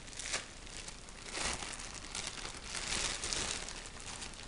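Clear plastic bag crinkling as it is handled and pulled open, in a run of irregular rustles that is busiest in the middle.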